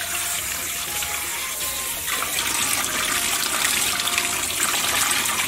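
Running tap water splashing onto snail meat as it is rinsed and rubbed by hand to wash off the slime. The splashing gets louder about two seconds in.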